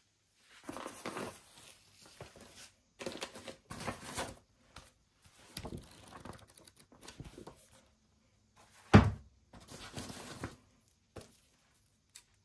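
Handling noise: a paper manual's pages rustling and a fabric carry bag being handled, in a string of short bursts, with one sharp thump about nine seconds in.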